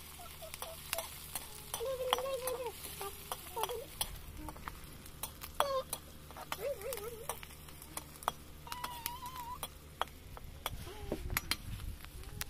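A metal spoon scraping and clinking against a steel wok as food is stirred, with a light sizzle of frying. The clinks come irregularly.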